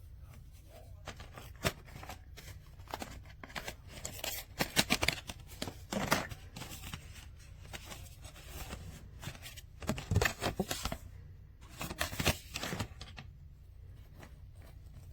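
Small objects being handled at close range: clusters of sharp clicks and rustling, with the busiest stretches about a third of the way in and again near two-thirds, over a low steady hum.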